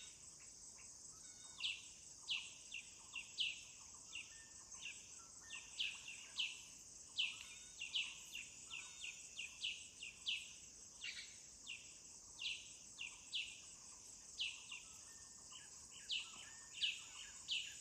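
A steady, high insect drone with short, falling chirps repeating irregularly, about two a second.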